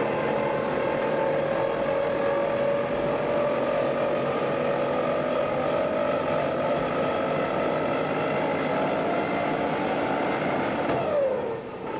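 Electric hoist motor of a cage lift running with a whine that rises slowly in pitch, then winds down with a falling whine and stops about eleven seconds in, over a steady rushing background.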